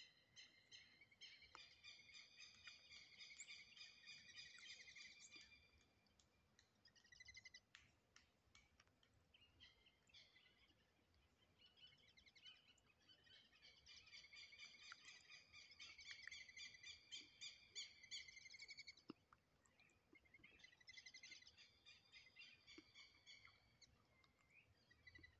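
A flock of wild ducks calling: bouts of high-pitched, rapidly repeated calls, several birds at once, with quieter gaps between the bouts.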